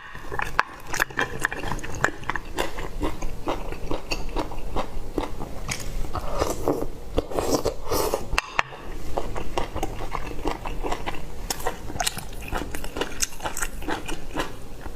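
Close-miked eating sounds: a person biting and chewing, with dense, irregular crunchy clicks and crackles and a brief break a little past halfway.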